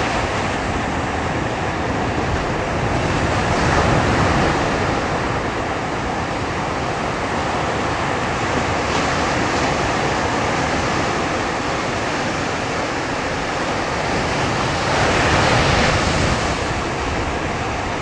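Ocean surf washing and breaking in a steady rush, swelling louder about four seconds in and again near the end.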